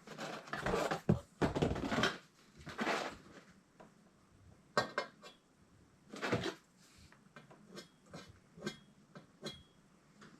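Metal tools and parts being rummaged through and handled: clattering and shuffling in the first few seconds, then a series of separate sharp metallic clinks, a couple of which ring briefly.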